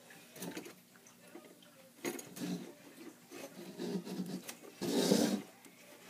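Hands rubbing and handling 8-pound test fishing line close to the microphone while tying it to a swivel: a series of irregular scraping rubs, the loudest about five seconds in.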